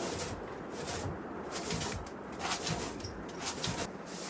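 Short, scratchy brushing and scraping strokes at irregular spacing, from someone cleaning up inside a wooden cabin by hand.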